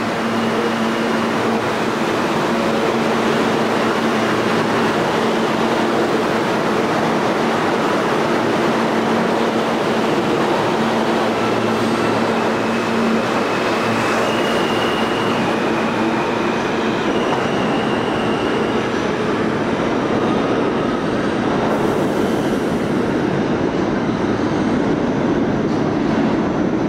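New York City subway train pulling out of an underground station and running past: a steady rumble of wheels on rail with a few short high whines. About three-quarters of the way through the hiss fades as the last car clears, while a lower rumble carries on as another train approaches through the tunnel.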